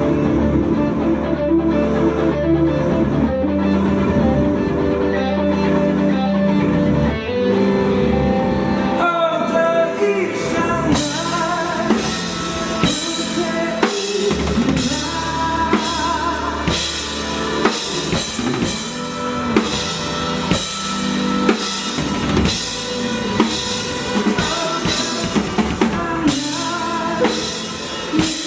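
Band music with a drum kit in an instrumental passage, no singing; sustained held chords at first, then the sound grows fuller and busier from about ten seconds in.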